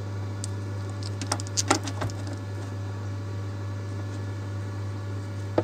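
A steady low hum with thin, faint higher buzzing tones over it, coming through the sound system: the noise fault the owner calls a "nasty engine sound". A few sharp clicks about one to two seconds in, from the RCA plugs being handled.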